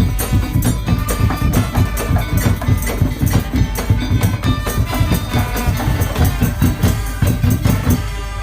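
Madurese ul-daul (tongtong) ensemble playing: fast, dense drumming and struck percussion under a pitched melodic line.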